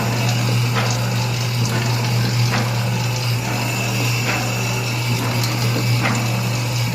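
Belt-driven jack pump running steadily with a deep constant hum and a sharp click about every second and a half to two seconds.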